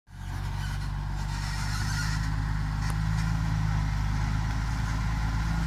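Ten-wheel dump truck's diesel engine running steadily as the truck backs up, growing slightly louder as it comes closer.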